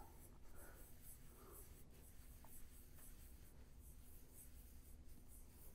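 Faint scratching of a pen drawing strokes on a drawing surface: a ground line and wheel ellipses being sketched.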